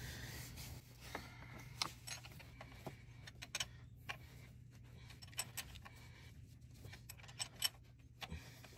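A metal wrench clicking and clinking against the fuel line nut on a high-pressure fuel pump as the nut is tightened by hand: scattered light metallic clicks over a low steady hum.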